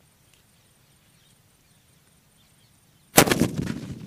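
A green VIP sutli bomb (a twine-wrapped firecracker) goes off about three seconds in with one loud, sharp bang, followed by a rumble that fades away.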